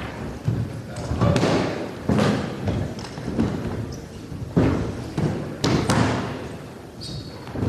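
Aikido partners taking falls on a wooden floor: a run of heavy thuds and slaps as bodies and hands hit the boards, with rustling of cloth and feet in between. Each impact echoes briefly in the large wooden hall.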